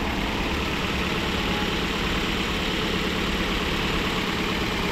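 Toyota Vios engine idling steadily, with no typewriter-like ticking from the valve train now that the oil passage to the cylinder head has been cleared.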